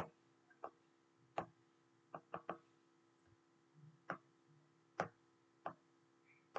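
About ten sharp, quiet clicks, single and scattered, with three in quick succession a little past two seconds in: taps and clicks of a device being worked by hand while a page is switched and an image pasted.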